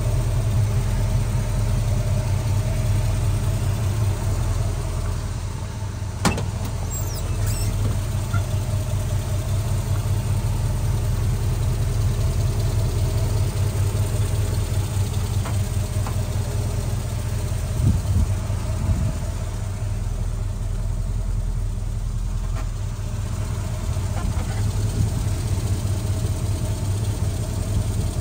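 351 Windsor V8 idling steadily through extractors and a mild steel exhaust, with one sharp click about six seconds in.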